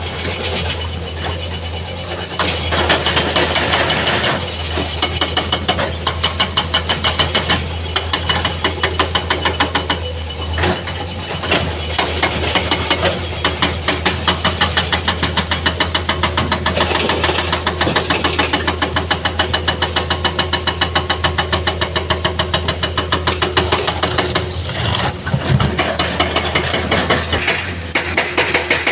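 Heavy diesel engine of a dump truck or excavator running, with a steady low hum and an even, rapid rhythmic throb of about four pulses a second.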